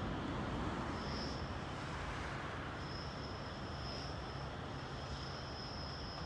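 Commuter train pulling away, its low rumble and wheel noise slowly fading, with a thin high whine that holds from about three seconds in.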